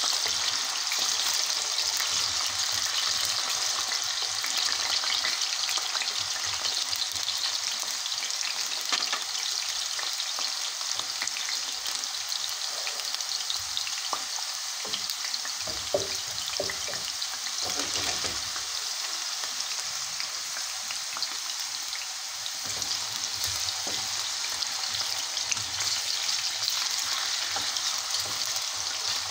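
Potato wedges frying in shallow oil in a stainless steel pan: a steady sizzle, with a few light clicks and scrapes of a slotted spoon turning them in the pan.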